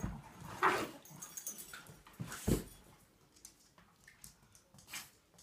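A dog making short whimpering sounds, loudest twice, about half a second and two and a half seconds in, with fainter short sounds between.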